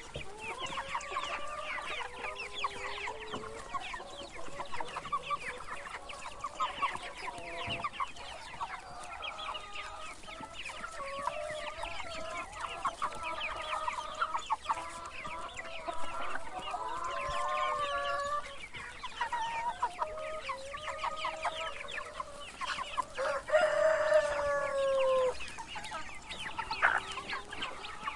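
Domestic chickens: many young chicks peeping in quick, dense chirps, mixed with lower, longer clucking calls. A louder drawn-out call with a falling pitch comes about 23 seconds in.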